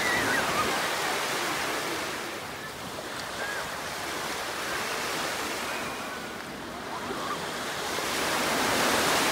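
Small sea waves breaking and washing up a sand beach, swelling near the start and again near the end.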